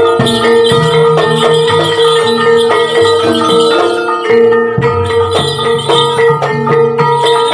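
Javanese gamelan music accompanying a kuda lumping dance: struck bronze metallophones play busy, quick notes with drums and jingling percussion over a steady held note.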